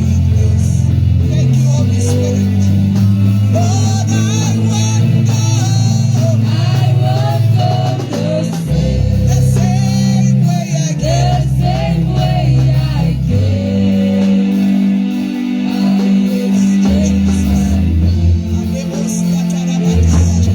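Worship music: voices singing over guitar and a heavy, sustained bass line.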